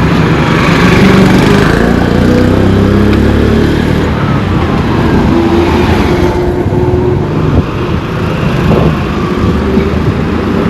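Road traffic: motor vehicle engines running and passing close by.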